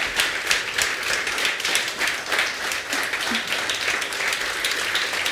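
A large audience applauding steadily, many hands clapping together.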